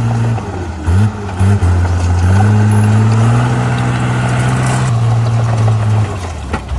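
Komatsu D37P bulldozer's diesel engine running under varying load, its pitch dropping and climbing again several times.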